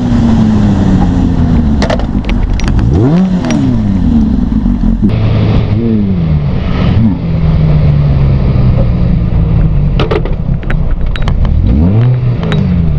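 Suzuki GSX-R 600 sport bike's inline-four engine running at speed under wind rush on the microphone, its pitch rising and falling several times as the throttle is rolled on and off. A few short knocks sound over the top.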